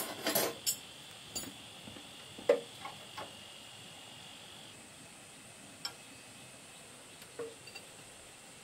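Metal tools clattering and clinking as they are handled at a toolbox, then a single sharp knock and a few light taps of metal. A steady high whine runs underneath and stops about halfway.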